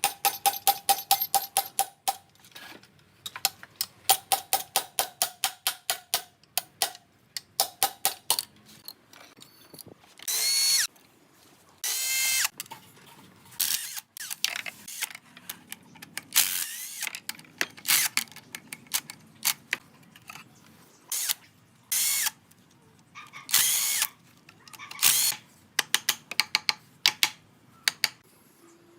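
Tools at work: a run of fast ratcheting clicks, several a second, for the first eight seconds or so, then a series of short whirring bursts of a power tool, each a second or less.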